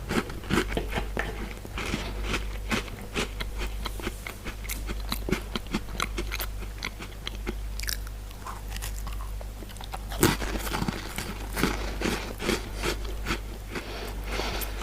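Ringo cream-filled sandwich biscuits being bitten and chewed close to the microphone: a steady run of crisp crunches, with a louder bite about ten seconds in.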